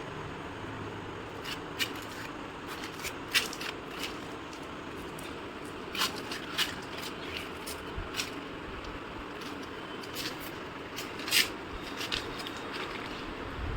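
Scattered sharp clicks and light taps at irregular intervals over a steady background hiss, like hand tools being handled and tapped.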